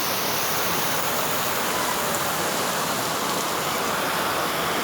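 Rain falling steadily: a constant, even hiss of rain with no break.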